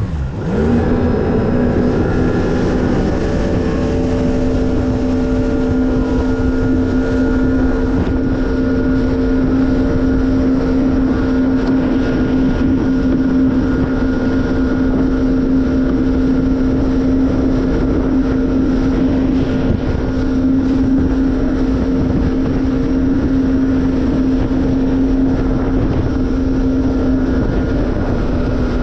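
Jet ski engine running at a steady speed with a constant pitched drone over a continuous rush of wind and water noise. The pitch settles within the first couple of seconds.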